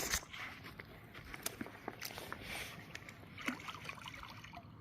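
Irregular splashing and sloshing of water with small scattered knocks, as a hooked common carp is brought over the landing net at the bank.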